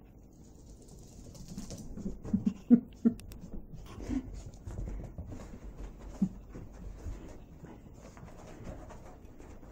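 A Yorkshire terrier scuffles and rolls about on a rug after a bath, with a few short dog noises between two and three seconds in.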